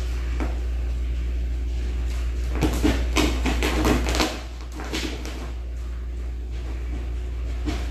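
A cat's claws scratching and tapping on a leather sofa back as it paws at a hanging cord, a short flurry of scratches around the middle. A steady low hum runs underneath and drops in level a little after the scratches stop.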